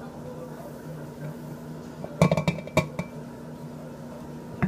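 A spoon clinking against a mug: a quick cluster of clinks about two seconds in, then one more just before the end, over a steady low background hum.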